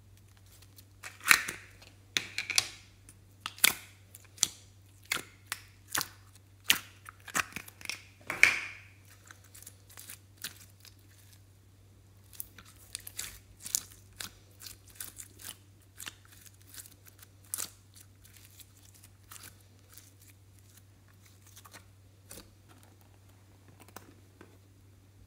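Hands opening a plastic tub of glossy glitter slime and pulling and stretching the sticky slime: a run of sharp clicks and sticky snaps, loud and close together for about the first nine seconds, then sparser and fainter.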